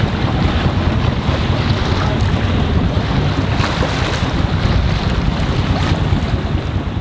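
Loud, steady wind buffeting the microphone over the rush of waves and water, recorded aboard a boat under way on open sea.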